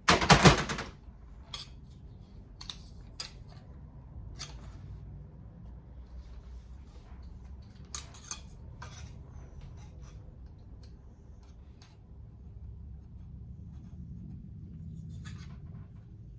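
A loud metallic clatter, then scattered sharp snips and clicks of tin snips and tools working rusted sheet steel on a classic Mini's shock mount.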